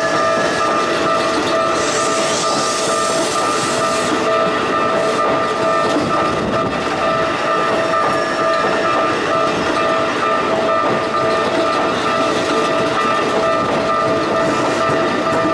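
Level-crossing warning bells ringing steadily while a commuter train runs over the crossing, its wheels clattering on the rail joints.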